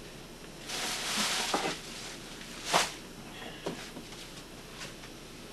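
Rustling and handling noises, then a sharp knock about three seconds in and a few lighter clicks.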